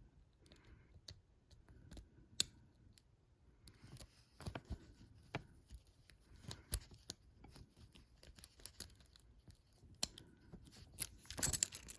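Lockpicking on a Comando padlock: scattered faint clicks and scrapes of the pick and tension wrench working the pins in the keyway, then a louder burst of clicking and rattling near the end.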